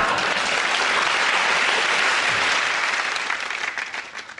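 Studio audience applauding, dying away over the last second or so.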